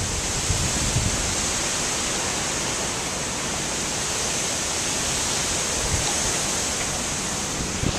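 Hurricane wind and rain: a steady, loud rushing hiss, with gusts buffeting the microphone in low thumps near the start and again around six seconds in.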